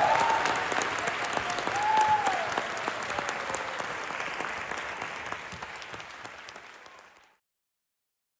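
Audience applauding, fading out over several seconds and cutting off to silence about seven seconds in.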